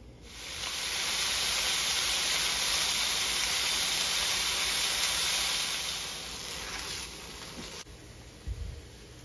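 Slices of ham sizzling on a hot griddle: a steady hiss that fades away about six to seven seconds in. A short soft thump comes near the end.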